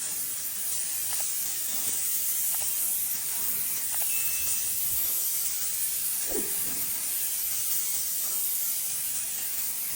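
Graco airless paint sprayer spraying paint, a steady high hiss from the spray tip.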